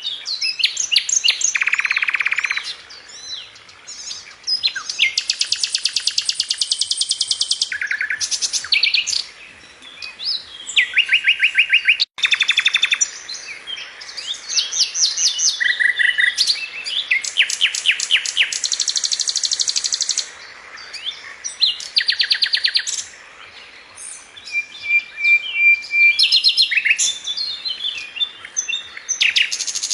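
Birds singing: rapid high trills and chirping phrases, each a second or two long, following one another with short pauses. There is a brief dropout about twelve seconds in.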